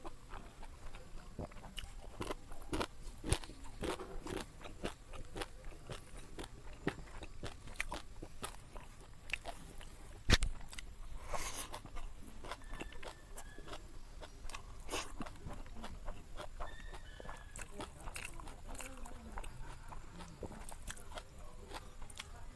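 A person chewing and crunching food with many short, wet clicks. One sharper knock comes about ten seconds in.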